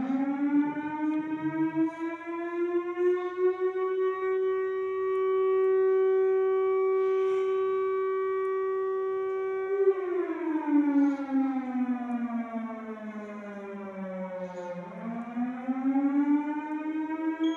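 Built-in siren of a Toshiba GA 400 400W public address amplifier wailing through the mosque loudspeakers. Its pitch rises, holds steady for several seconds, falls slowly for about five seconds, then rises again near the end. The siren signals the end of sehri time, when the fast begins.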